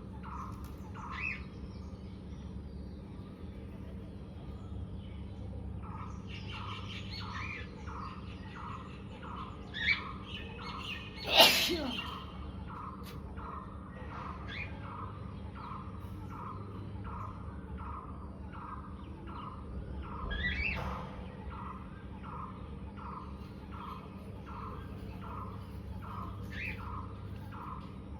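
A bird-like chirp repeated steadily, about three every two seconds. A sudden loud burst comes about eleven seconds in, with smaller ones just before it and again around twenty seconds.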